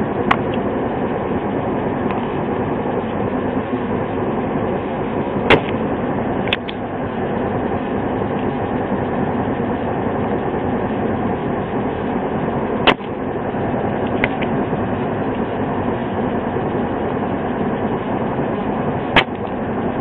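Spring-loaded desoldering pump (solder sucker) firing with sharp clicks every few seconds, sucking solder off the pins to remove a failed relay from a circuit board, over a steady background noise.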